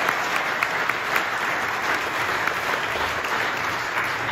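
An audience applauding steadily, with a few sharp individual hand claps standing out near the start.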